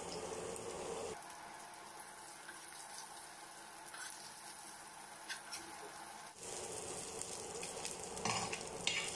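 Prawns frying in hot coconut oil in a pan, a faint steady sizzle that drops quieter about a second in and returns near six seconds. A metal spoon scrapes and clinks against the pan a few times as the fried prawns are scooped out.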